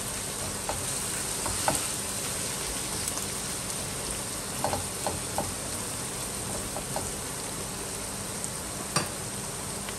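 Sliced onions and ginger-garlic paste sizzling in oil in a non-stick kadai, a steady frying hiss as they are sautéed to cook off the raw garlic. A silicone spatula stirring through them gives a scatter of light taps and scrapes, the sharpest about nine seconds in.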